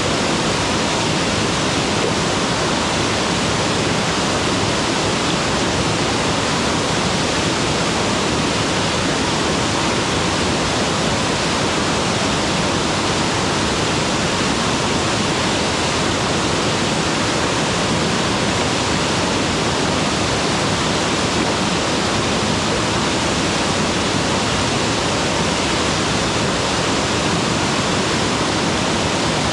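Mountain waterfall: water falling and churning in a steady, unbroken rush, full and even from deep to high.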